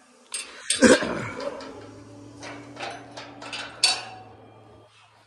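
Steel louvered gate-door being handled and opened: a series of metallic clanks and rattles, loudest about a second in and again near four seconds, over a low steady hum.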